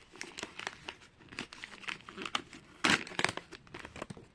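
Plastic packaging crinkling in the hands as a small toy package is handled and unwrapped: a run of short, sharp rustles, the loudest about three seconds in.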